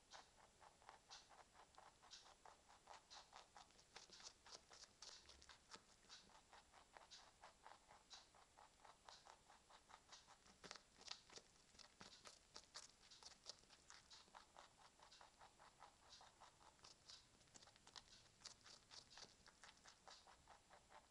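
Mini lop rabbit chewing a piece of raw carrot: a faint, quick, steady run of small crisp crunches.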